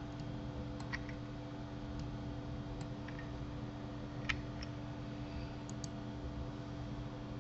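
Scattered clicks of a computer mouse and keyboard, about eight in all, the loudest about four seconds in, over a steady low hum.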